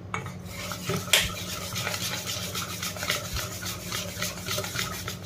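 Wire whisk beating thick flour-and-curd jalebi batter in a stainless steel bowl, the whisk clicking and scraping against the steel at about three strokes a second.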